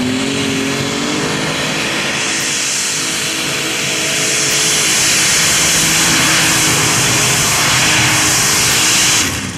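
Heavy super stock pulling tractor's engine running at full throttle under load as it pulls a sled down the track. The loud, dense roar builds about four seconds in and drops off sharply near the end.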